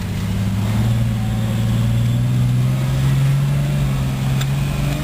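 Jeep YJ engine heard from inside the cab, pulling under load up a snowy slope, its pitch rising slowly and steadily.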